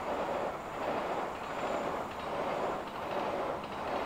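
A train running along the line, a steady rumble of wheels on rails that swells and eases, with a few faint clicks near the end.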